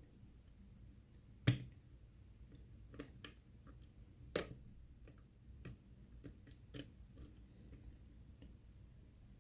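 Small metallic clicks and ticks of a lock pick working the pins and warding of a six-pin challenge lock held under tension, scattered and irregular, with two sharper clicks about one and a half and four and a half seconds in.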